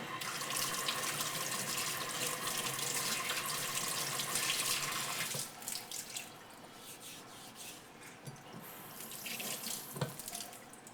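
Water running from a tap for about five seconds, typical of rinsing a knife blade or a waterstone during sharpening, then stopping, followed by quieter handling sounds and one sharp knock near the end.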